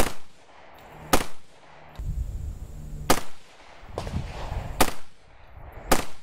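AR-15 rifle with a Gibbz Arms G4 left-hand side-charging upper, chambered in .223 Wylde, firing five single shots in slow, aimed semi-automatic fire, spaced about one to two seconds apart, each shot followed by a short echo.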